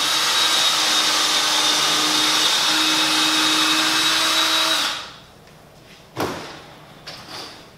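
Cordless drill driving a screw into the maple wood of an Adirondack chair's arm, running steadily for about five seconds and then stopping suddenly. A single sharp knock follows about a second later.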